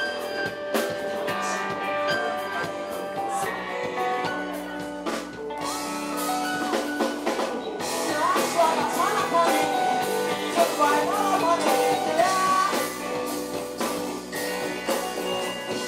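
Rock song with guitar and drum kit; a voice starts singing about halfway through.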